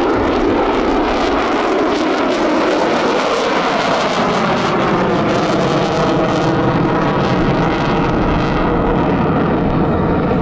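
A US Navy F-35C's Pratt & Whitney F135 jet engine in max afterburner, a loud, continuous jet roar as the fighter passes. The roar's high end thins toward the end as it moves away.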